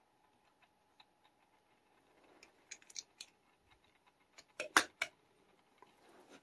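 Faint clicks and taps of small toy cars and their packaging being handled. Scattered light clicks lead to a quick cluster of sharper clicks about four and a half seconds in.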